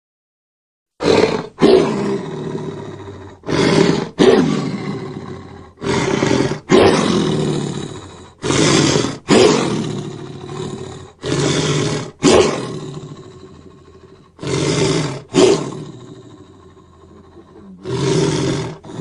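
A creature's roar sound effects: a series of short roars, many in close pairs, each trailing off in an echo. They begin about a second in.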